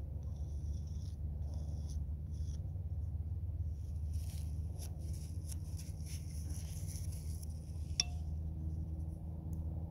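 Short scratchy strokes of a painting tool on canvas, then a longer run of scraping with a few clicks and one sharp click about eight seconds in, over a steady low rumble.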